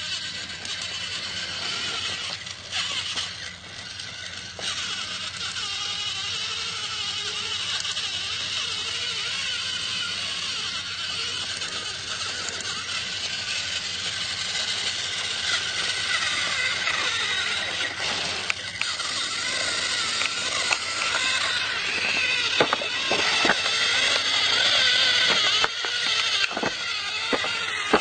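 Battery-powered toy train running along its track: a steady motor whir with rattling, and sharp clicks that come more often in the second half.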